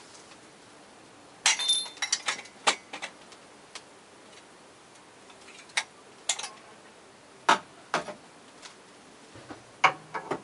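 Irregular sharp clicks and ticks, some bunched in quick clusters and others single, over a faint steady hiss.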